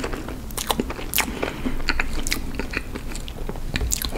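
A person chewing a mouthful of red velvet cake with cream cheese frosting, with many small mouth clicks and smacks.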